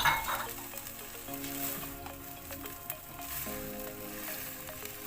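Tomato-based bolognese sauce sizzling in a pan, with a few light utensil clicks against it.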